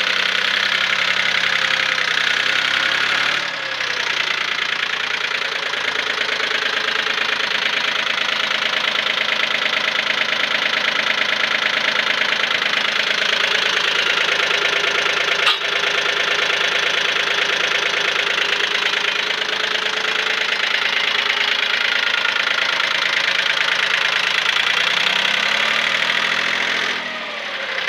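Jinma 284 tractor's diesel engine running steadily with a fast, even clatter. A single sharp click about halfway through.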